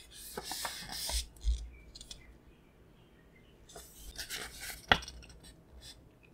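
A paper booklet being opened and its pages turned by hand: crisp rustling in two spells, with one sharp snap about five seconds in.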